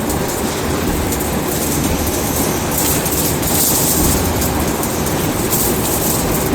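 Factory machinery running with a steady, dense mechanical clatter and hiss, the hiss swelling for a second or so about three seconds in and again near the end.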